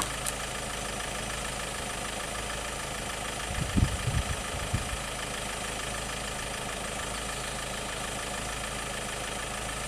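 Vehicle engine idling steadily, with a short cluster of low knocks about three and a half to five seconds in.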